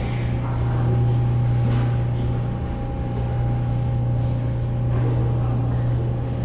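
Steady low machinery hum with two faint steady higher tones, from the berthed high-speed ferry Ocean Arrow's engines and on-board machinery.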